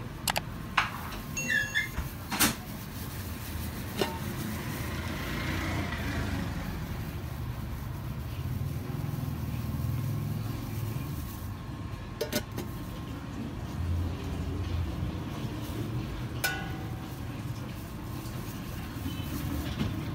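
Steady low rumble of busy street ambience with traffic, broken by a few sharp clinks and knocks, several of them close together in the first couple of seconds and others at about 4, 12 and 16 seconds.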